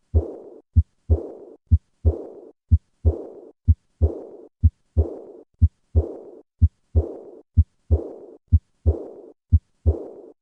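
Heart sounds of a patient with aortic regurgitation, about one beat a second: two low thumps per beat, the second followed straight away by a high-pitched diastolic murmur that fades away before the next beat.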